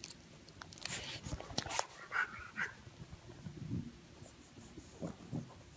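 Faint dog sounds: scratchy rustling and clicks of movement during the first two seconds, then a short high-pitched cry a little after two seconds in, and low grunting sounds near the end.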